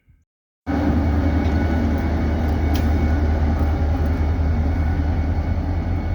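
A heavy engine running steadily with a low drone, starting suddenly within the first second.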